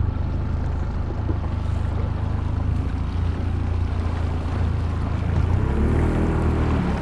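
Small outboard motor running steadily, driving a punt across open water, with wind and water noise over it. A brief wavering higher sound rises and falls about six seconds in.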